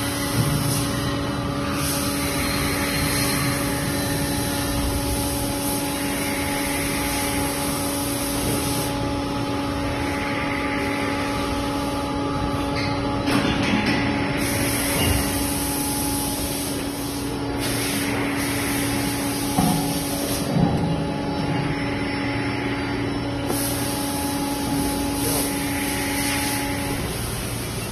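Plastic injection moulding machine running with its mould closed, partway through a moulding cycle for a chicken feeder: a steady machine hum with a hiss over it. There are a few short knocks in the middle, and the hum stops about a second before the end.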